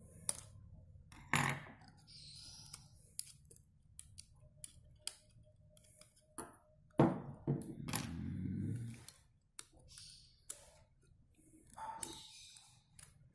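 Small screwdriver clicking and scraping against a circuit board and its metal frame as the board is worked loose, with scattered sharp clicks and handling noise. A louder knock comes about seven seconds in, followed by a couple of seconds of rustling as the assembly is handled.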